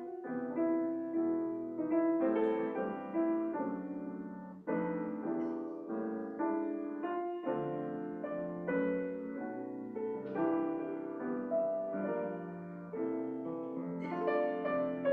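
Solo piano playing slow, gentle chords, each struck and left to ring out.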